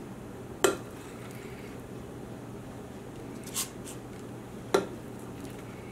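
Sharp clicks and taps from a squeeze-handle metal ice cream scoop as it scoops batter and releases it into paper liners in a metal muffin tin: three short knocks, the middle one softer, over a steady low hum.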